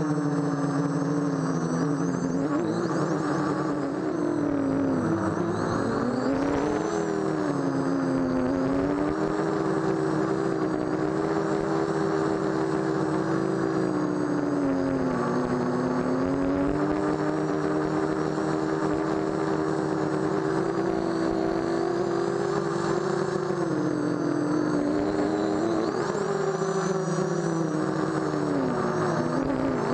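Brushless motors of a micro quadcopter (18-11 2000 kV motors with 5030 Gemfan propellers) whining, heard from on board. The pitch dips and climbs again and again as the throttle changes during the flight.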